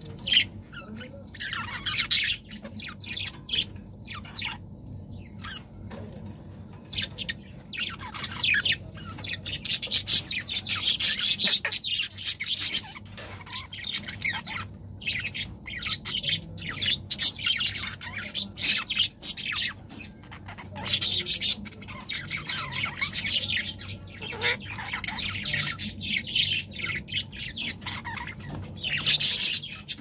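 Pet budgerigars chattering: a steady stream of quick, high chirps and squawks, denser in some stretches than others.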